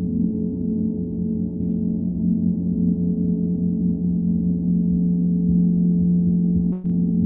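Singing bowl being played continuously, a steady sustained hum of a few pure tones that holds without fading, with a brief click near the end.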